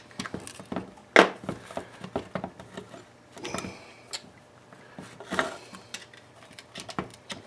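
Scattered metal clicks and knocks as a tiller's tine gearbox housing and tools are handled during disassembly, with one sharp knock about a second in and brief scrapes later.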